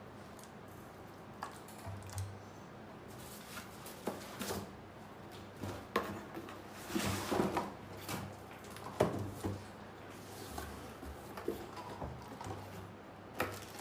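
Hands handling packaging and parts in a box: scattered clicks and knocks, with a longer rustle about seven seconds in.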